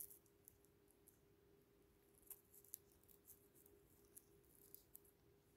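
Near silence with faint, scattered small clicks and rustles from nitrile-gloved fingers pressing and rubbing on a sheet of paper, over a faint steady hum.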